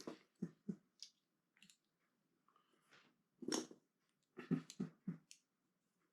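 Small plastic Lego pieces clicking and rattling as they are handled and pressed together: a handful of short, sharp clicks in small bunches.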